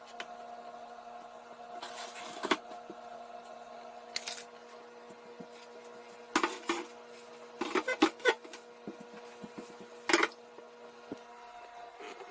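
Scattered knocks and short clatters of wooden pieces being handled, several in quick succession around the middle, over a steady low electrical hum.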